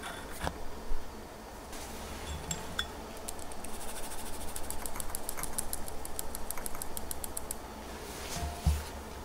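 Fine-mesh metal sieve being shaken and tapped over a glass bowl, sifting cake flour into batter: a quick, even run of light ticks, about six a second, lasting around four seconds in the middle. A few scattered clicks come before it and a single soft knock near the end.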